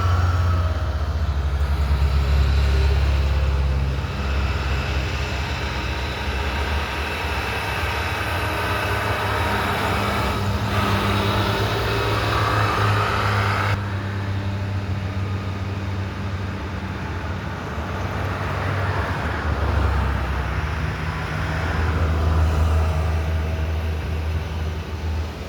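A vehicle engine running steadily under way, its low hum rising and falling with speed, mixed with road and wind noise. The sound changes abruptly about halfway through.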